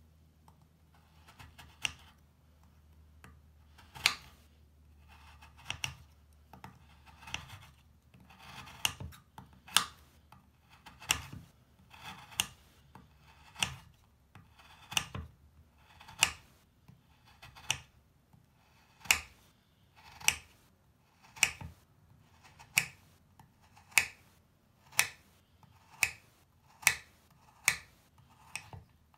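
A large kitchen knife slicing through a crumbly solid bubble bar, one crisp crunching cut after another, each ending as the blade meets the cutting board. The cuts come about once a second, a little quicker in the second half.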